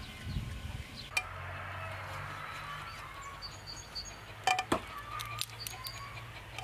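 A kitchen knife cutting chunks off a potato held in the hand over a bowl, heard as a few sharp clicks, the loudest two close together past the middle. Small birds chirp in the background over a low steady hum.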